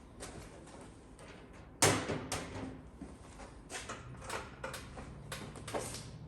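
Clicks and rattles of plastic body-panel rivets and hardware being worked loose and handled, with one sharp snap about two seconds in followed by a string of lighter clicks.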